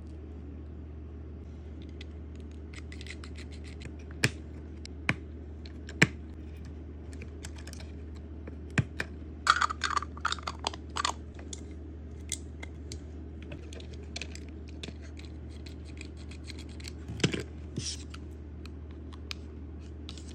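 Toy packaging being handled and opened by hand: scattered sharp clicks and taps of plastic, with a busier run of crinkling and clicking about halfway through and another near the end, over a steady low hum.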